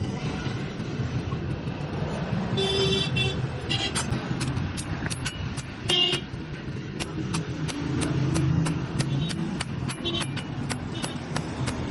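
Light, even hammer taps on metal, about three or four a second, starting about four seconds in over a steady low rumble of road traffic. A vehicle horn toots briefly twice, near three seconds and again near six.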